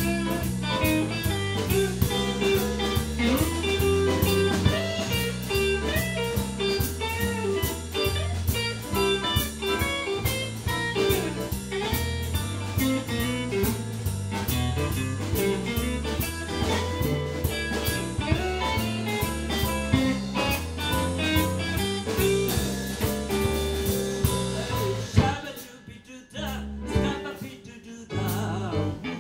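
Blues band playing electric guitar, bass and drums at a steady beat. About 25 seconds in, a loud hit ends the passage and the music drops to quieter guitar.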